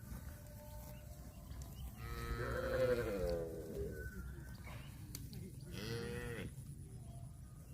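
Cattle calling twice: a long, wavering moo about two seconds in, then a shorter one rising and falling about six seconds in, over a low rumble.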